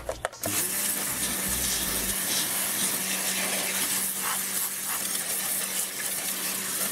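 Dedra 1900 W electric pressure washer's high-pressure jet hissing as it blasts caked dirt off the steel underside of a lawnmower deck, with a steady low hum beneath. The spray starts about half a second in and runs on steadily.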